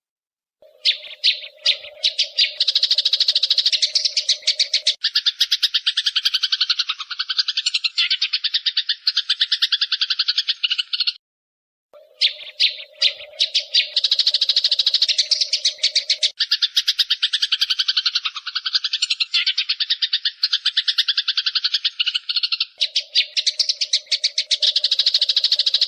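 Eurasian tree sparrow giving a long, rapid chattering call, the agitated 'fighting' chatter, in two long bouts with a brief break at about twelve seconds. A lower steady buzz runs under the first few seconds of each bout.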